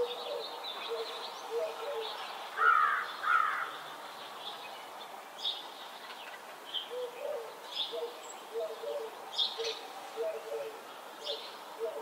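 Several wild birds singing and chirping together in a spring morning chorus. Quick high chirps and short low notes repeat throughout, with two louder calls about three seconds in.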